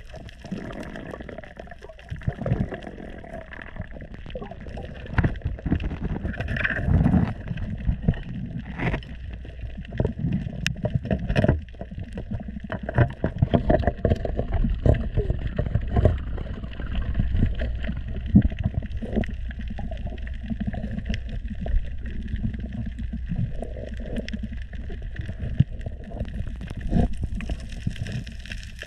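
Underwater sound as a free diver works at a pole spear stuck in a reef hole: a muffled low rumble with many sharp, irregular clicks and knocks.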